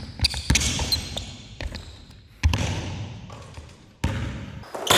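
A basketball being dribbled hard on a court, with loud bounces at irregular intervals, three of them standing out about two seconds apart.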